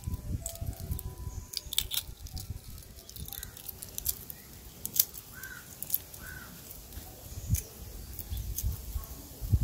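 Wood fire crackling under a cooking pot, with scattered sharp pops and a low rumble, and a bird chirping twice near the middle.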